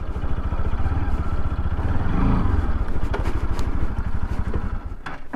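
Bajaj Pulsar RS200's single-cylinder engine running at low revs as the bike rolls slowly in to park.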